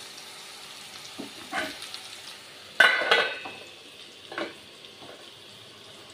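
Okra sizzling steadily as it fries in a metal pan, with a few light knocks and, about three seconds in, a loud clatter with a short metallic ring as a metal lid is set on the pan to let the okra cook through.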